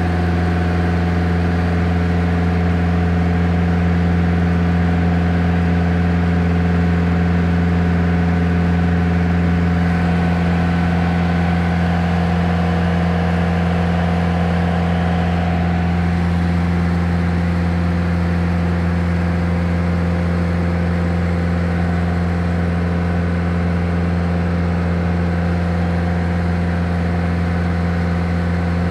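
Light touring aircraft's piston engine and propeller droning steadily in flight, a constant low hum with a faint slight shift in tone about halfway through.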